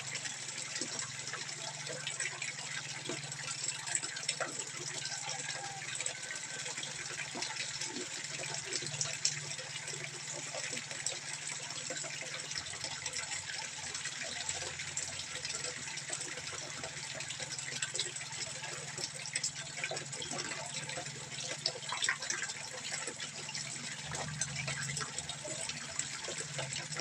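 Water trickling and splashing steadily into a fish pond, a constant hiss full of small irregular drips and spatters, with a low steady hum underneath.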